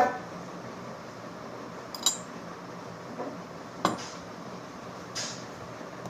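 Metal clinks from hand tools and parts being handled. A ringing strike opens it, a sharper clink follows about two seconds in and another near four seconds, with softer scrapes between them.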